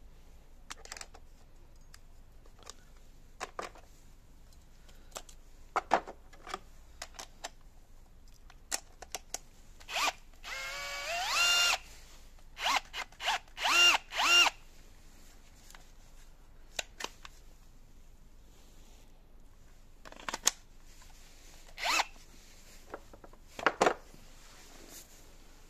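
Bosch AdvancedDrill 18 cordless 18 V drill driver run briefly on its trigger: about ten seconds in the motor whines up in pitch and spins for about a second, then runs in several quick bursts. Later there are a few more short pulses, with clicks and taps from handling the tool in between.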